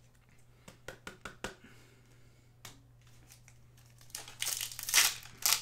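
A trading-card pack's wrapper crinkling and tearing as it is ripped open by hand, loudest from about four seconds in, after a few light clicks.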